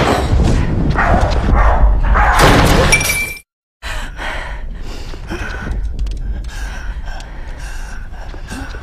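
Film soundtrack: a loud crash of breaking and shattering lasting about three seconds, which cuts off suddenly. After that come quieter scuffling knocks with a faint held tone underneath.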